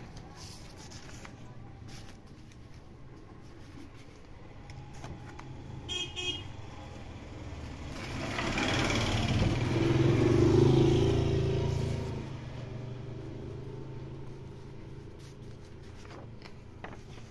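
A motor vehicle passes, its sound swelling and fading over about four seconds midway, over a steady low hum of road traffic. A brief high toot comes about six seconds in.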